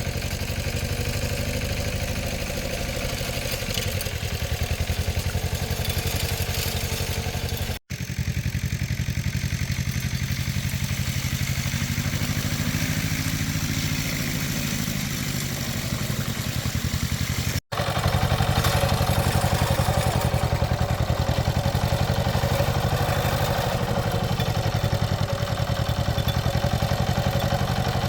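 Small engine running steadily at an even speed, cutting off for an instant twice.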